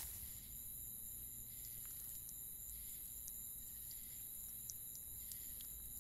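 Faint night forest ambience: a steady high insect chorus with scattered short chirps over a low rumble.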